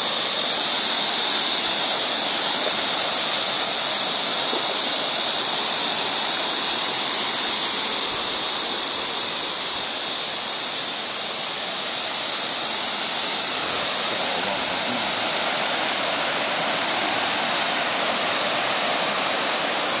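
Mountain stream rushing over rocks and small cascades: a steady, loud rush of water that eases slightly about halfway through.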